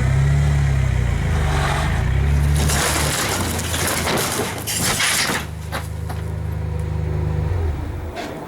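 Vehicle engine running steadily under load, with loud cracking and splintering of wood for a few seconds in the middle as the shed is pulled apart.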